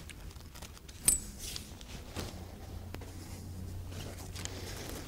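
Rain fly nylon rustling as its Velcro corner strap is fastened around the tent frame, with one sharp snap about a second in. Then soft footsteps on carpet, with a low steady hum underneath.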